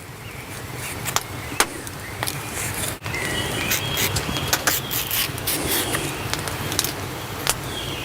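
Fibrous skin being stripped and scraped off fresh Alexanders stems: a rubbing, scraping noise with scattered crisp snaps and short squeaks.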